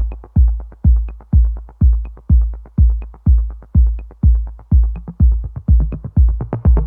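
Electronic background music: a deep kick drum on a steady beat of about two hits a second, with light ticks between; synthesizer chords come in at the very end.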